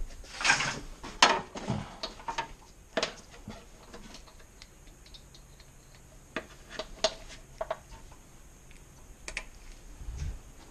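Hand tools and small metal parts being handled: scattered clicks, knocks and clatter, a busy run of them in the first two seconds and only occasional ones after.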